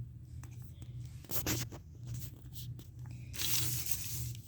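Rustling and scraping with a few sharp clicks, then a longer rustle about three and a half seconds in: handling noise.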